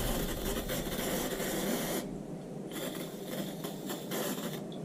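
Aerosol gun-cleaning solvent (gun scrubber) sprayed from a can onto a pistol's polymer frame in two long hissing bursts, the second starting just under a second after the first stops.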